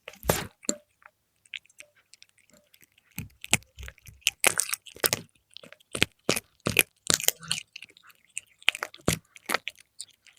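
A cat chewing crisp fried milkfish: irregular crunches and bites. A lull of about two seconds comes near the start, then the crunching resumes, thickest in the middle.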